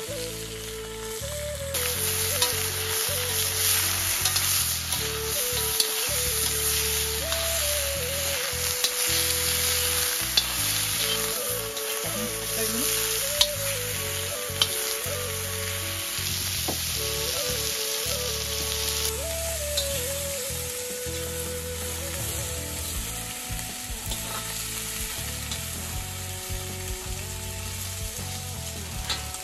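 Food frying and sizzling in a hot pan with stirring, and scattered sharp pops of spattering oil. The sizzle is louder from about two seconds in and eases off a little after about nineteen seconds. A quiet background melody runs underneath.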